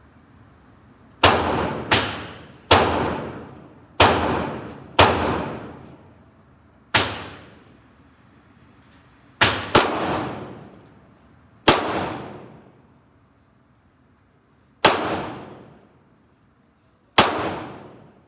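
Gunshots echoing through an indoor shooting range, fired from other lanes: about eleven sharp reports at irregular intervals, a few in quick pairs, each ringing off in a long echo.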